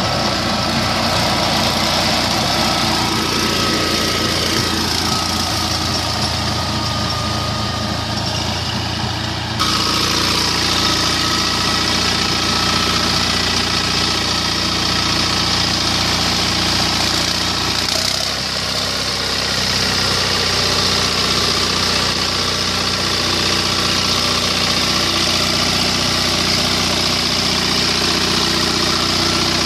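Captain 25 hp compact tractor's diesel engine running steadily under load while it drives a rotavator tilling the soil. The sound changes abruptly about ten seconds in and dips briefly a little before the middle.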